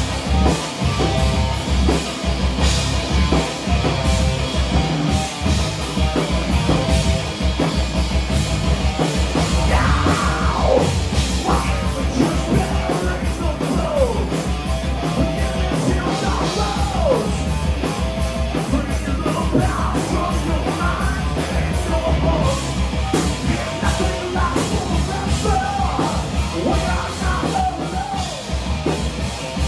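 Live heavy metal band playing at full volume: a drum kit pounding at a fast, steady beat under electric guitars, with yelled vocals and pitch-bending lines in the middle of the song.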